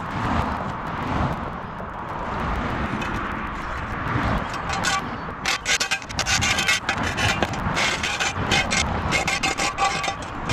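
Shovel blade scraping grit and debris across an asphalt path in rapid repeated strokes, starting about five seconds in, over a steady hum of road traffic.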